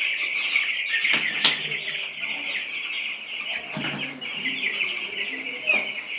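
A brood of week-old broiler chicks peeping constantly as a dense, high chorus. There are two sharp knocks about a second in and a duller bump near the middle.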